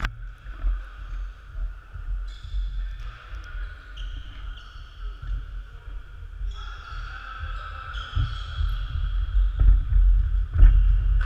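Echoing sports-hall ambience: a steady low rumble with faint distant voices. From about eight seconds in it grows louder, with thuds of players' feet on the wooden floor as play starts.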